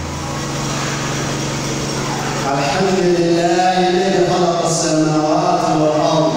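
A man's voice chanting into a microphone in a drawn-out melodic line, starting about two and a half seconds in, over a steady low hum.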